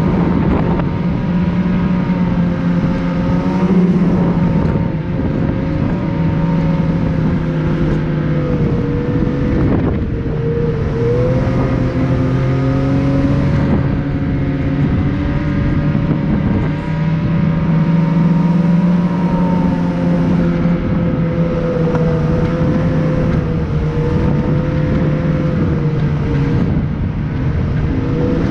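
Engine of a moving vehicle running steadily under way, its pitch rising and falling gently with the throttle, over a steady rush of wind and road noise.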